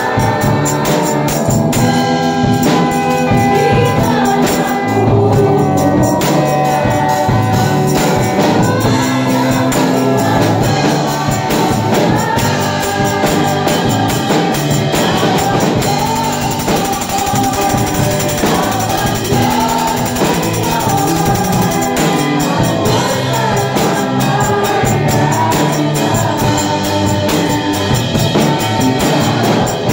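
Worship group singing a Tagalog praise song into microphones, a woman's lead voice with backing voices, over band accompaniment with a steady beat and tambourine-like percussion.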